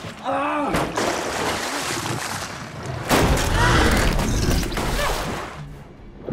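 Film sound effects: a man's short pained cry, then churning, rushing floodwater with a deep boom about three seconds in and a woman's brief cry over it.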